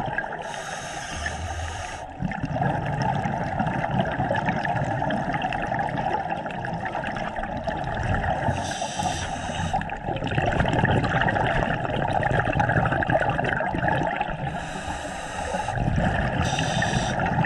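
Scuba diver breathing through a regulator underwater: a hissing inhale comes and goes several times, with low bubbling exhales in between.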